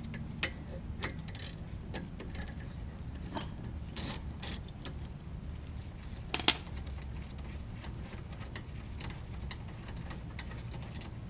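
Light metallic clicking of a ratchet wrench and hand tools working the rear brake caliper bolts, irregular and scattered, with one louder metal clank about six and a half seconds in.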